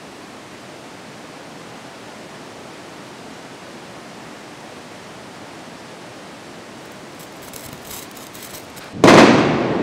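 Steady rush of the cave's underground river. About seven seconds in, a lit fuse sputters and crackles for a couple of seconds. Then a blasting charge goes off with one sudden, very loud explosion that rumbles away slowly.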